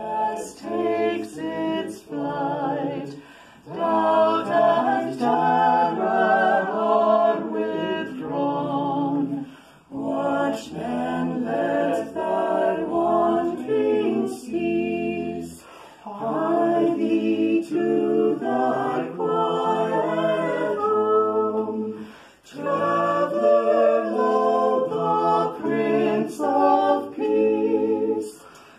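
Small a cappella vocal ensemble of five voices (soprano, two altos, tenor, bass) singing a Christmas carol in harmony, in phrases about six seconds long with short breaks for breath between them.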